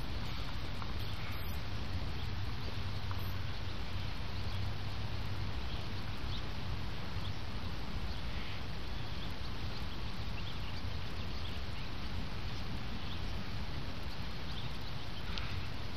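Steady low rumbling noise of wind on the microphone, with no clear event standing out.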